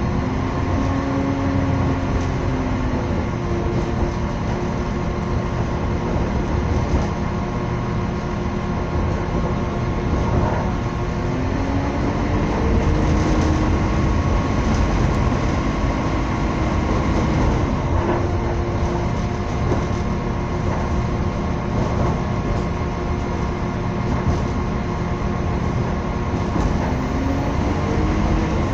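A passenger train running along the line, heard from aboard: a steady rumble of wheels on track, with faint whining tones that now and then slowly rise and fall.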